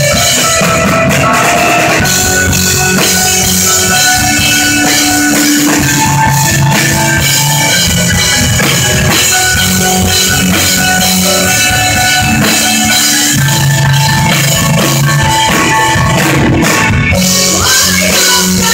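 Live rock band playing an instrumental passage, loud and continuous: drum kit, electric guitars and keyboard, with no singing.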